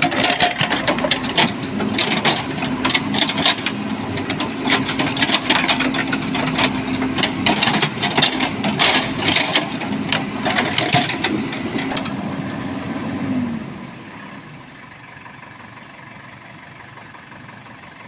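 JCB 3DX backhoe loader's diesel engine running, with frequent rattling and knocking over a steady drone. About three quarters of the way in, the engine note dips and the sound drops to a much quieter steady hum, as the engine slows to idle.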